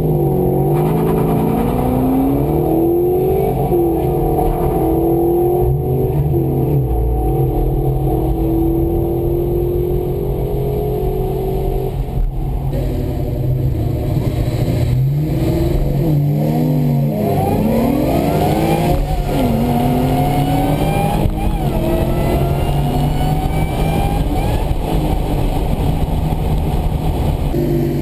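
Ford SVT Cobra Mustang V8 heard from inside the car, revving and accelerating hard. The engine note climbs in pitch again and again, dropping back between climbs as at gear changes.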